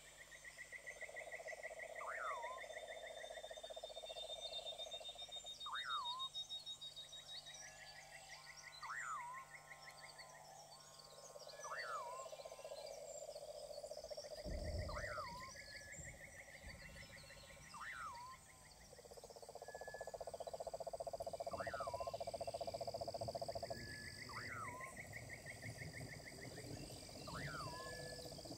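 A chorus of calling animals, frog-like: pulsing trills and croaks a few seconds long overlap one another, a short sharp chirp repeats about every two seconds, and a thin high steady whine sits above them. A low rumble comes in about halfway through.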